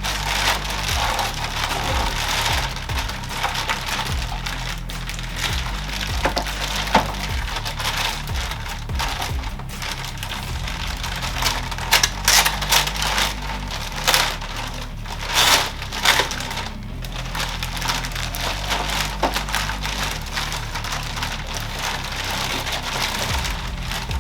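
Packaging being pulled off and handled: plastic and cardboard crinkling and crackling in irregular bursts, a few sharper and louder, over steady background music.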